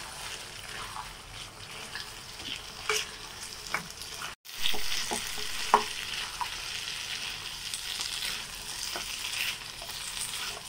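Fried potato pieces being stirred and tossed in a sizzling chilli sauce in a non-stick pan with a silicone spatula: a steady frying hiss with soft scrapes and taps of the spatula. The sound cuts out for a moment about four seconds in, then the sizzling comes back a little louder.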